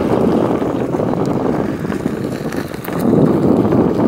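Wind rushing over the microphone while the bicycle is ridden along, a rising and falling noise that swells louder about three seconds in.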